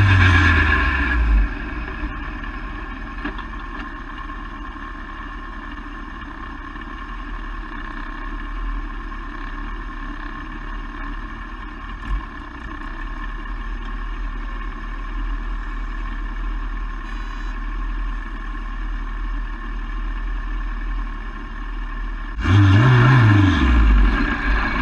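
Race car engine heard onboard: loud, its pitch falling as the driver lifts off in the first second or so, then a long stretch of quieter, steady running noise while the car slows. Near the end the engine revs hard again, its pitch climbing and dropping back as it accelerates.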